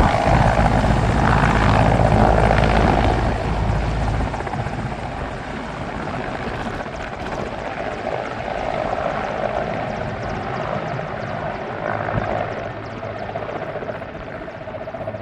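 Helicopter rotor and engine noise: loud with a deep rumble for the first four seconds, then the rumble drops away and the sound fades to a softer, steady whir.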